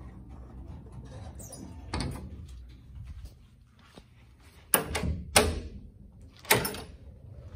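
Wooden door's thumb-latch pull handle being worked and the door pulled open: three sharp latch clacks and knocks in the second half, after a steady low hum and a single thud.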